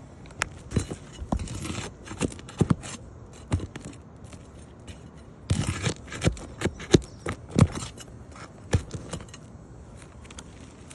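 Irregular scraping and sharp knocks of a hand tool working under asphalt roof shingles, coming in two bouts with a short pause between them.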